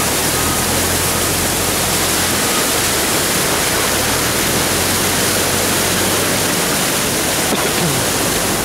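A stream in flood running fast, heard as a steady, loud rush of water.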